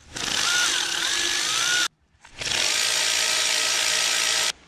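A handheld power tool run in two bursts of about two seconds each, with a whine that wavers in pitch in the first burst and holds steady in the second; each burst stops abruptly, as when the trigger is released. It is being used on 13 mm bolts while the power steering pump and oil filter housing come off.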